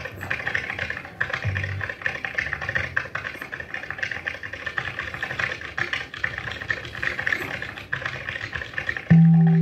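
Backing track of fast, dense clicking like typing on a keyboard, with a few low thuds. About nine seconds in, pitched music cuts in with a loud held low note.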